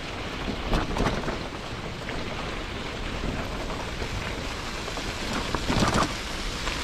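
Mountain bike rolling over a dirt road: a steady rushing noise of tyres on loose ground, with knocks from bumps about a second in and again near the end.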